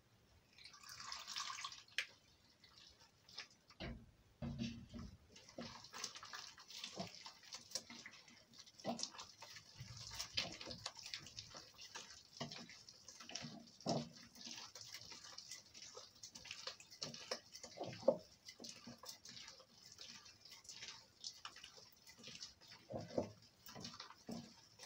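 Water poured from a jug into flour in a glass bowl, briefly, near the start, then a hand mixing and squeezing the wet mandazi dough: faint, irregular squishing with light knocks against the glass bowl.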